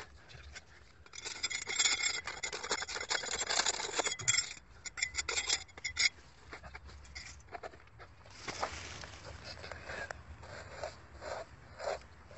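Gloved hands scraping and raking gritty soil out from under a stone block: long rasping scrapes for the first half, then a run of short, separate scrapes near the end.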